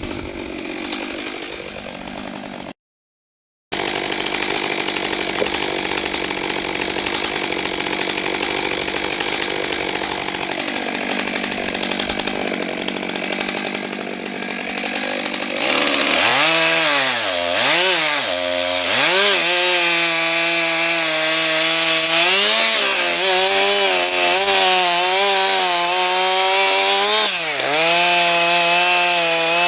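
Stihl MS 661 C-M 91 cc two-stroke chainsaw running, then, about halfway in, getting louder as it cuts wood, its engine pitch dipping and recovering several times under load. The sound drops out completely for about a second near the start.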